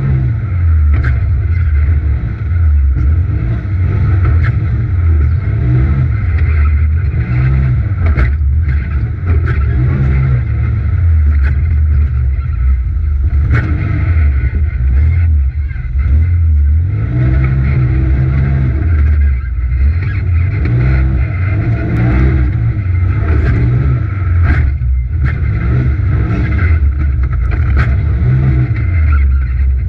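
Polaris RZR XP Turbo's turbocharged twin-cylinder engine under hard racing throttle, revving up and falling back repeatedly, with brief lifts of the throttle every few seconds.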